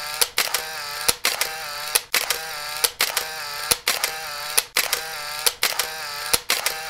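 Camera shutter clicks, each followed by a short whirring wind-on, repeating evenly a little more than once a second.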